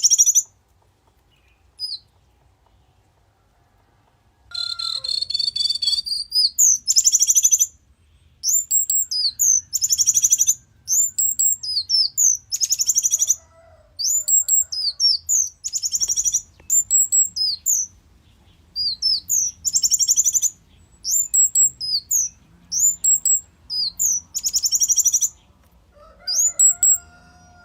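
Small songbird singing: a single chirp, then, from about four seconds in, phrase after phrase of high, quick chirping notes and trills, each about a second long with short gaps between. It is singing to beg for worms.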